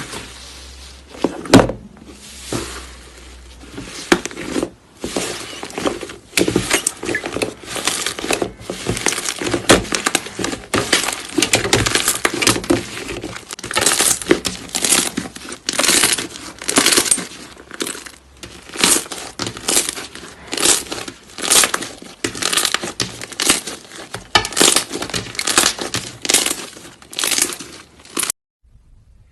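Slime being squeezed and pressed by hand, giving dense crackling and popping in bursts about once a second.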